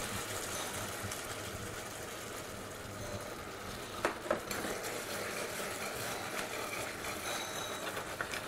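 Steady hiss of a steaming saucepan of red-wine sauce with mushrooms and onions on a kitchen hob, with a couple of sharp clicks about four seconds in and a metal spoon clinking against the pan near the end as it is stirred.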